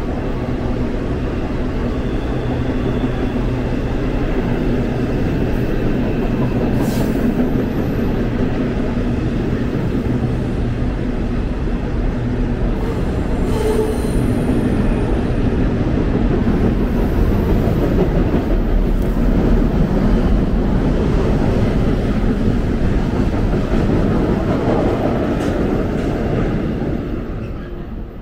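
Double-stack container freight train rolling across a steel trestle bridge: a steady, loud rumble and rattle of the cars on the steel span, dying away near the end.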